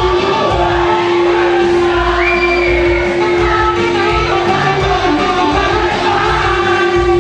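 A live band playing a song with singing. One long held note runs through the first half.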